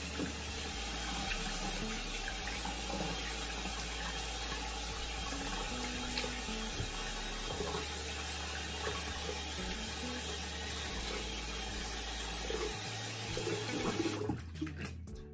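Bathroom tap running into a sink with water splashing as foaming face cleanser is rinsed off. The running water stops suddenly about a second before the end.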